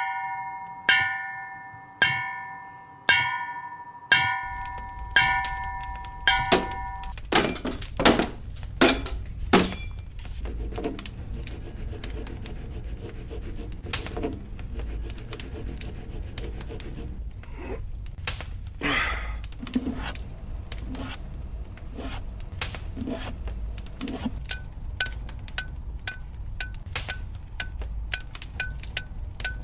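Hammer blows ringing on a blacksmith's anvil, about one a second for the first several seconds, each leaving a ringing tone that dies away. They give way to a low steady rumble with irregular metal knocks and clinks of forge work. Near the end comes a regular light tick about twice a second.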